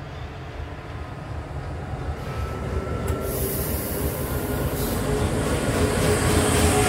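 A train running through the station, growing steadily louder as it approaches, with a hiss and a thin steady whine coming in about halfway.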